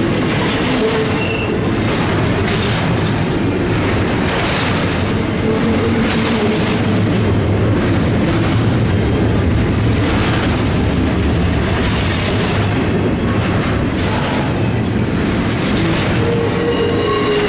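Double-stack intermodal freight train's well cars rolling past at speed: a steady, loud rumble and clatter of wheels on rail, with thin squealing tones coming and going.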